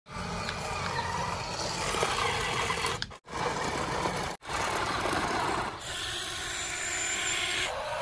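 Small electric motors and plastic gears of toy radio-controlled construction vehicles whirring, mixed with a grainy noise. The sound cuts out abruptly twice and changes pitch and character about two thirds of the way through.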